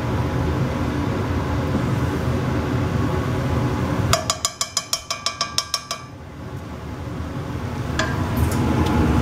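A metal serving utensil tapping on a cast iron skillet: a quick run of about a dozen sharp ringing clinks, about six a second, for some two seconds, over a steady background hum.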